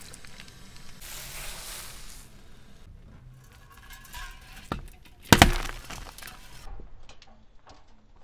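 Crunching and crackling from a car tyre rolling slowly over objects on asphalt, with one loud sharp crack a little over five seconds in that dies away over about a second.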